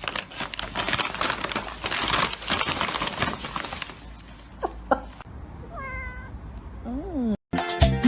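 A cat meowing a few short times, after a stretch of scratchy rustling and clattering noise. Music starts just before the end.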